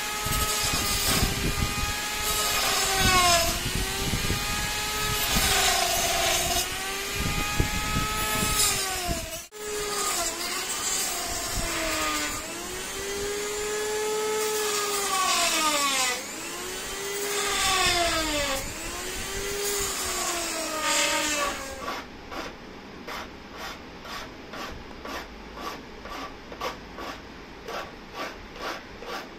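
Handheld rotary tool with a cutting disc cutting through a tinted plastic motorcycle windshield. Its whine sags in pitch and recovers every second or two as the disc bites into the plastic and frees again. For the last several seconds the cutting stops, and there are quieter, evenly spaced strokes, about two to three a second, of the cut edge being worked by hand.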